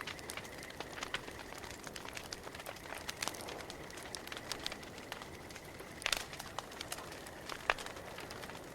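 Campfire burning with irregular crackles, pops and snaps over a soft hiss, with a louder cluster of pops about six seconds in. A faint, high, pulsing tone comes and goes in the background.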